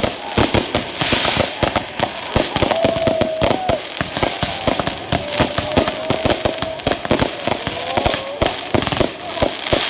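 Fireworks going off in rapid succession: a dense run of sharp cracks and pops. Several times a wavering steady tone sounds over the crackle.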